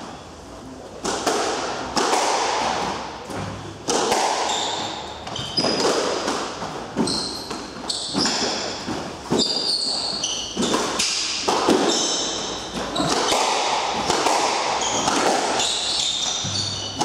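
Squash rally: the ball cracks off racquets and smacks the court walls, sharp knocks about once a second with a ringing echo, and shoes squeak on the wooden floor between shots.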